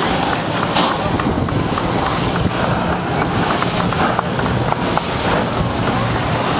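A jet ski engine running steadily as it drives water up the hose to a flyboard, under a constant noise of water spray and wind buffeting the microphone.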